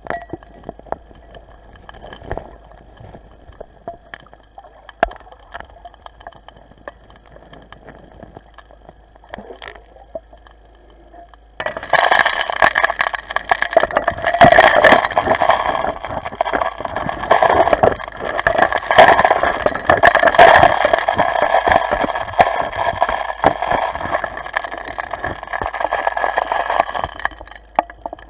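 Suction dredge heard underwater: a steady drone with scattered clicks of stones, then about twelve seconds in a sudden loud rush of water and gravel rattling through the dredge's suction hose.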